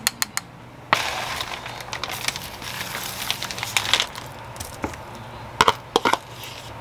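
Dry sheets of roasted seaweed (gim) crackling and crinkling in a plastic bag as they are pulled out and laid on a wooden board. Near the end come a few sharp clicks of a spoon knocking against a plastic container.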